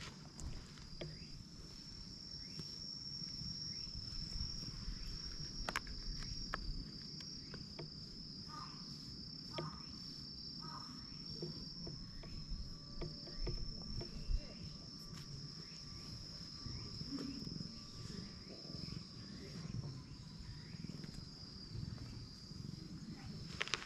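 Insects trilling steadily at a high pitch, with soft rubbing and rustling from a hand stroking a cat's fur close to the microphone, and a few faint clicks.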